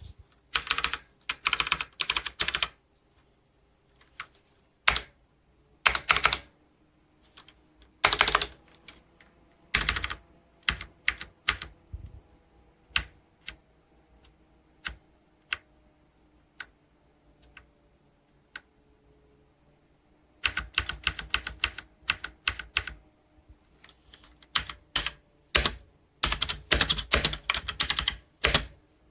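Typing on a Logitech K845 mechanical keyboard with TTC Brown switches. Fast runs of keystrokes come at the start and through the last third, with scattered single key presses in between.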